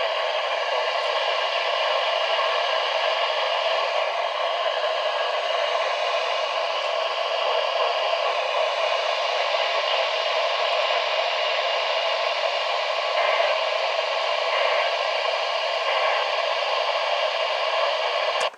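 Steady static hiss from a NOAA weather radio receiver tuned to a channel with no program audio, cutting off suddenly at the end.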